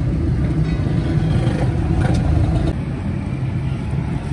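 Steady low rumble of road traffic and engines, with a couple of faint knocks about two seconds in.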